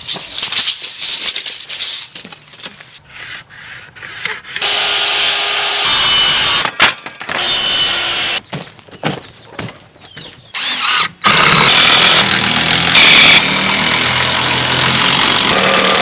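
Corded circular saw cutting wooden trim boards: three steady cuts lasting from about one and a half to four seconds each, the last and longest starting a little after halfway. Lighter knocking and handling noises come in the first few seconds.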